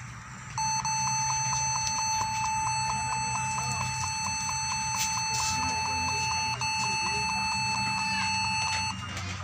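Dell Inspiron 1564 laptop giving a long, steady, high electronic beep during its boot screen, starting about half a second in and lasting some eight seconds, with a brief break about two-thirds of the way through, over a low hum.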